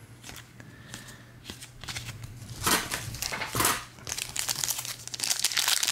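Foil trading-card pack wrapper crinkling in the hand. It is sparse at first, with two louder crackles about three seconds in, and becomes continuous crinkling near the end.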